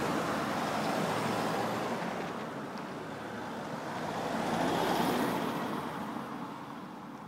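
Two cars driving past close by, one after the other: a people carrier and then an estate car, their tyre and engine noise swelling and fading. The second pass is loudest about five seconds in.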